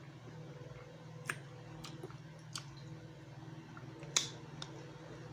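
Crab being eaten with the mouth close to the microphone: a handful of sharp clicks and cracks of shell among quiet chewing, the loudest crack about four seconds in, over a low steady hum.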